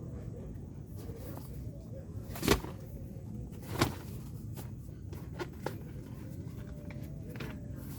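Two sharp knocks about a second apart, followed by a few fainter clicks, over a steady low rumble.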